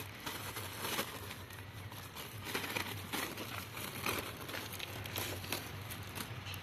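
Thin plastic packets crinkling and popped popcorn rustling as it is scooped by hand and filled into the bags, in scattered, irregular light rustles and clicks over a faint steady low hum.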